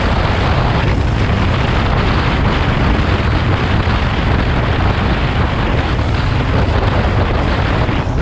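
Loud wind buffeting on the camera microphone of a motorcycle at speed, mixed with the running of the KTM Duke 125's single-cylinder engine.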